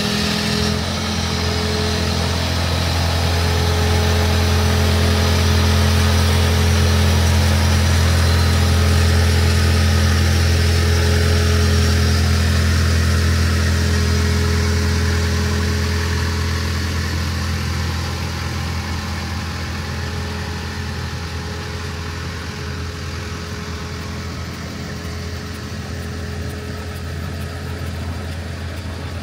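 An engine running with a steady low hum. It grows louder over the first few seconds, is loudest around the middle, and fades over the last third.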